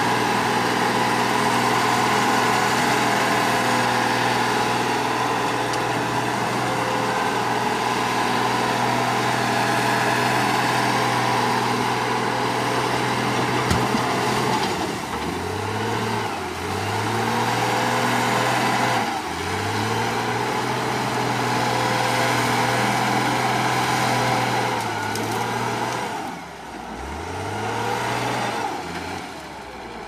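Wheel loader's diesel engine working hard while the machine is stuck in mud. From about halfway through, its revs repeatedly sag and climb back up, several times, as it bogs down under the load and recovers.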